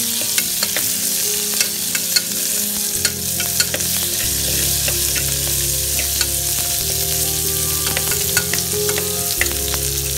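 Chopped onion sizzling in hot oil in an aluminium pressure cooker, stirred with a steel ladle that clicks and scrapes against the pan again and again. It is the first frying of the onion in the tempering oil.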